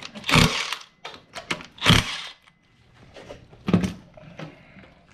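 Cordless impact wrench on the rear sprocket nuts of a motorcycle wheel, firing in two short bursts about a second and a half apart, followed by a single heavy knock near the end.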